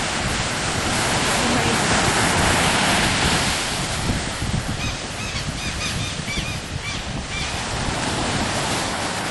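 Strong wind and surf at the beach: a steady, loud rushing noise that swells about two seconds in.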